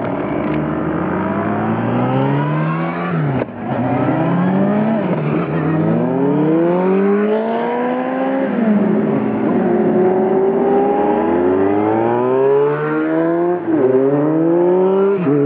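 A group of motorcycles pulling away from a standstill one after another, their engines rising in pitch through each gear and dropping back at every shift, several overlapping.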